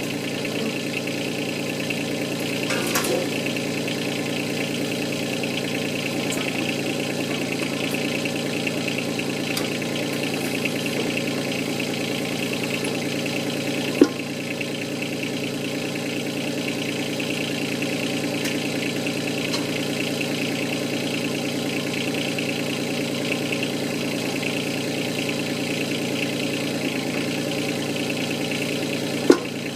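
Yanmar 2450 tractor's diesel engine running steadily, with two sharp knocks, one about halfway through and one near the end.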